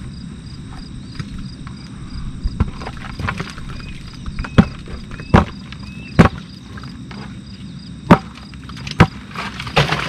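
A series of sharp knocks: a few light ones, then five loud ones about a second apart in the second half. Under them, insects chirp steadily in an even, rapid pulse.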